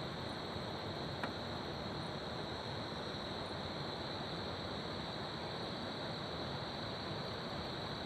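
Crickets chirring in a continuous high trill over the steady rush of flowing river water, with a single faint click about a second in.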